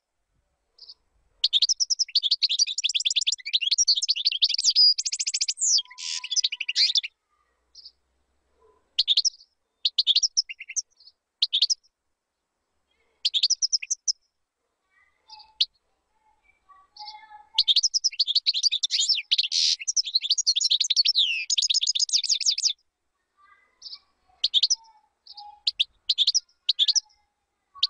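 European goldfinch singing: two long runs of rapid twittering and trills, one starting about a second and a half in and one about two-thirds of the way through, with short chirps and brief phrases separated by silent gaps between them.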